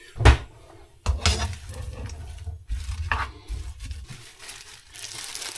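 A plastic spatula knocks once against a non-stick frying pan, then scrapes and stirs sliced raw onions around the pan in irregular strokes.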